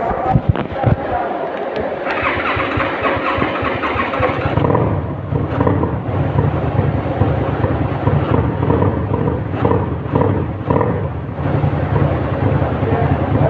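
Kasinski Mirage 250 motorcycle engine catching just after starting, firing unevenly with sharp pops, then a louder rasping stretch about two seconds in, before it settles into a loud, steady deep idle with a few small surges.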